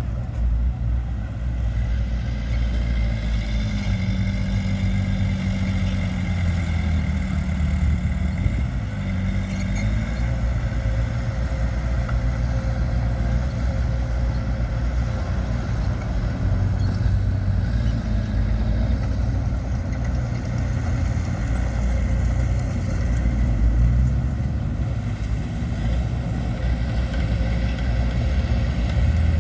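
Heavy earthmoving machinery's diesel engine running steadily under load, its note shifting up and down for several seconds starting about three seconds in.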